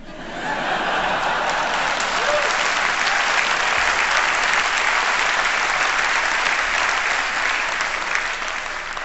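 Large audience applauding after a punchline, swelling within the first second, holding steady and tapering off near the end.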